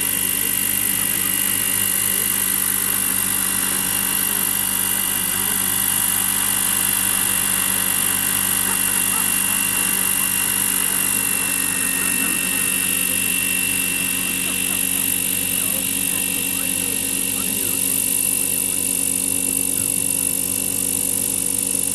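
Large scale RC model helicopter in a low hover: steady rotor noise with a high, even whine from the drive, the pitch holding constant throughout.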